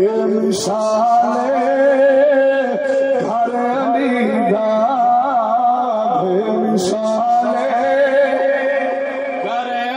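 A man singing in a melodic, ornamented chant into a microphone, his notes bending and held long, over a steady low tone. Two short clicks cut through, about half a second in and near seven seconds.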